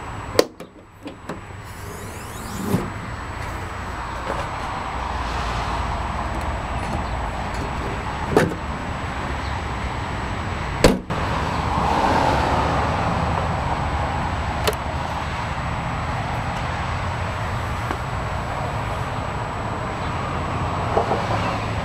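Rear hatch latch of a Snyder ST600-C three-wheeler clicking open, followed by a few sharp knocks and clicks from handling the hatch, over a steady low rumble.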